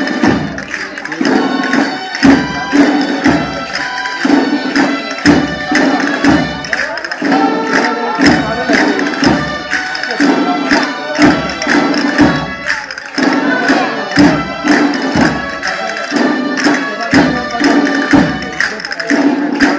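Traditional Valencian folk dance music for a fandanguet, played with a steady, strongly marked percussive beat under sustained melody tones.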